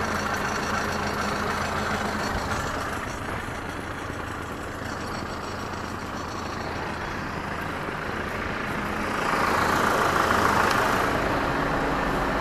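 Ursus C-392 tractor engine running steadily under load while pulling a five-furrow plough through dry ground. It drops a little about three seconds in and grows louder again about nine seconds in.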